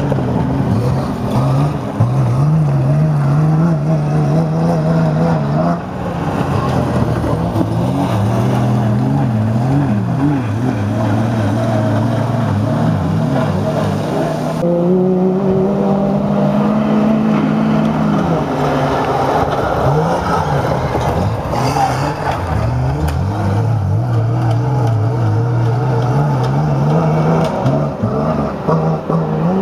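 Engines of GAZ-51 autocross race trucks running hard on a dirt track. The engine pitch climbs and drops again and again as the trucks accelerate, with one longer rise about halfway through.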